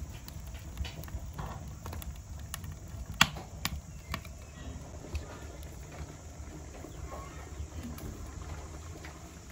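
Wood fire burning in a stove's firebox, crackling with scattered sharp pops over a steady low rumble; the loudest pop comes about three seconds in.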